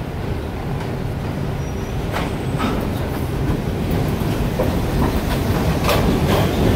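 New York City subway train coming in, its steel wheels clacking over rail joints and growing steadily louder, with the clacks starting about two seconds in.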